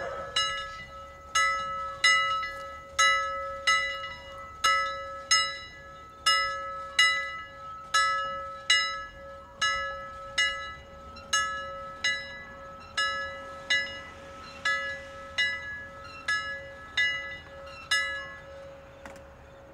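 A medium-sized bell struck over and over, about one stroke every second, each ring decaying over a steady underlying hum. The strokes stop shortly before the end.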